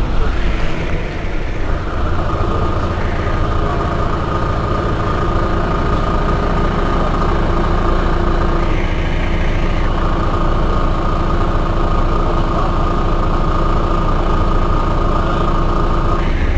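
Mercedes-Benz O405 N city bus's six-cylinder diesel engine idling steadily, with a steady high whine over it that drops out twice for a moment.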